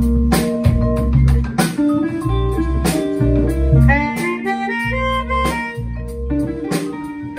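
Live instrumental blues jam: electric guitar, harmonica and vibraphone over drums, percussion and upright bass, with a steady drum beat and held harmonica notes.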